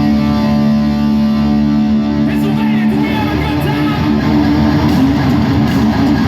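Live hard rock band playing loudly through an arena PA, with distorted electric guitar. A chord is held for about two seconds, then the band moves into a busier riff.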